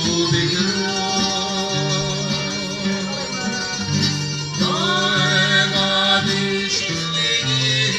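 Live song: a woman sings through a microphone over guitar accompaniment, with held low notes underneath. About halfway through, her voice slides up into a held note.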